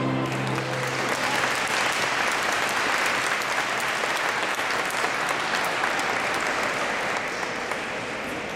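Audience applauding after a dance ends, steady and then easing off near the end. The band's last held note dies away about a second in, under the first claps.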